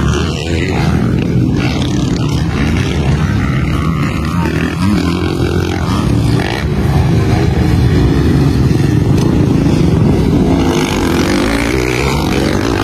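Motocross motorcycles racing, their engines revving hard and steady.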